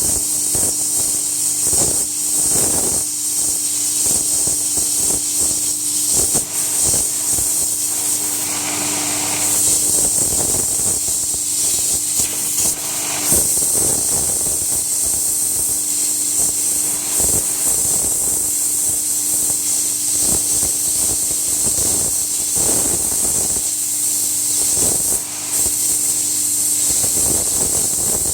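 3000 psi pressure washer jet spraying against wood, a loud steady hiss with a steady hum underneath and small dips in level.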